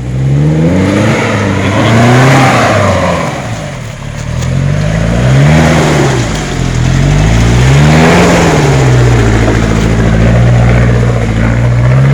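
A 4x4's engine revving hard in repeated surges as it works up a muddy slope. Its pitch rises and falls three times, then holds high near the end.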